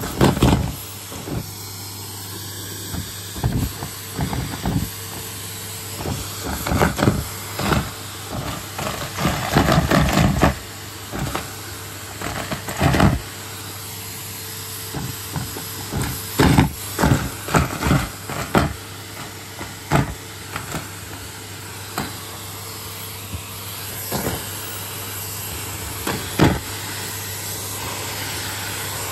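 Vacuum cleaner running steadily with a low hum and rushing suction, as it picks up balloons and fluff. Frequent irregular knocks and rattles come and go over it.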